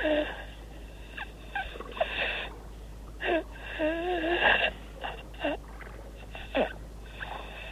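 Divers' labored breathing through scuba breathing gear: a string of short, uneven breaths with a wavering pitch and a hiss. Their air tanks read empty.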